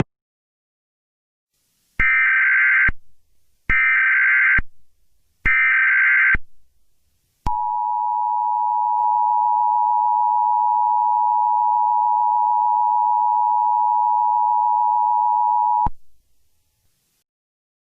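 Emergency Alert System SAME header: three short bursts of digital data tones about a second apart, followed by the EAS two-tone attention signal (853 and 960 Hz) held steady for about eight seconds and cutting off sharply. This sequence marks the start of an emergency alert message.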